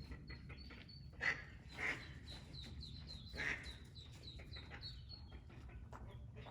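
Ducklings peeping: a steady run of short, high peeps, with a few louder, fuller sounds about a second in, near two seconds and about halfway through.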